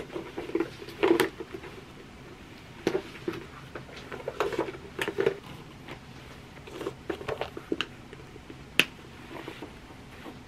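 A shoulder bag being handled and put on: rustling of the strap and clothing, with scattered light clicks and clinks of its metal strap hardware, and one sharp click near the end.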